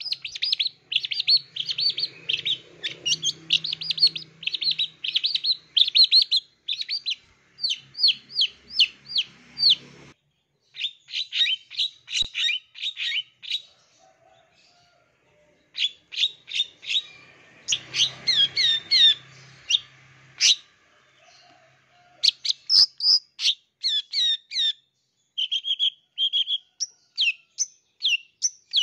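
Long-tailed shrike (cendet) singing a varied, mimicry-filled song: quick runs of sharp high chirps and short gliding whistles, broken by a few short pauses.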